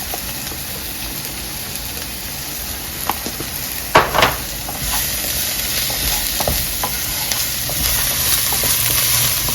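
Yellow squash and garlic sautéing in an open pan: a steady sizzle, with a few clacks of a utensil against the pan while stirring, the loudest about four seconds in. The sizzle grows a little louder about halfway through.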